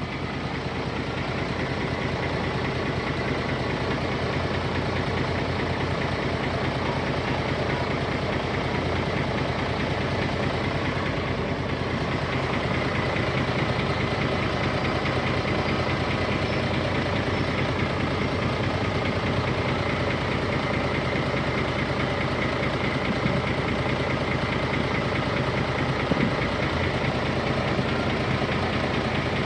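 Heavy diesel earthmoving machinery, a bulldozer or dump truck, with its engine running steadily and evenly throughout.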